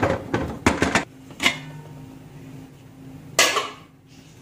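Metal lid of a large cooking pot, used on the stove as an oven, being lifted off after baking. A few sharp metallic clanks in the first second and a half, then a short scrape about three and a half seconds in.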